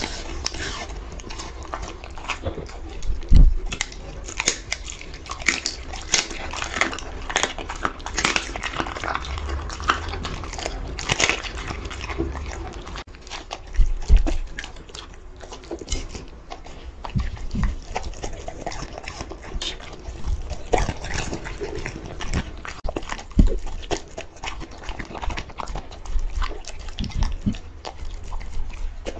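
Dog eating from a plate: irregular wet chewing and smacking with crisp crunches and clicks, and a few dull thumps.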